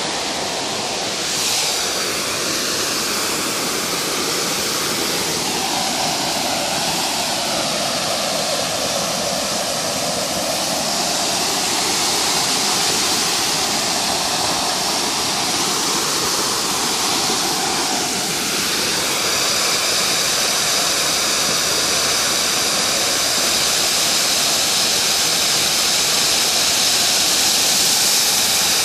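Waterfall pouring into a pond: a steady, loud rush of falling water, its tone slowly shifting.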